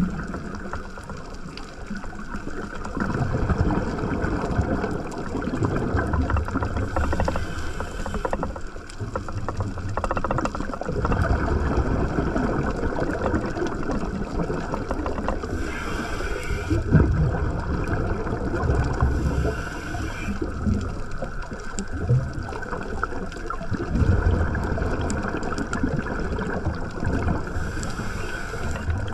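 Underwater sound of a scuba diver breathing through a regulator. Exhaled bubbles rumble and gurgle in bursts a few seconds long, and a short higher hiss of inhalation comes between some of them.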